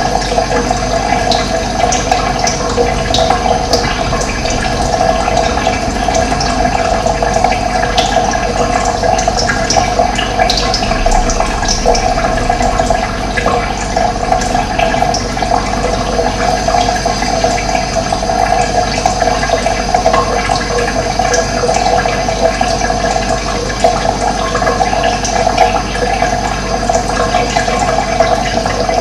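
Running water flowing and gurgling steadily, with short high chirps of birds scattered over it.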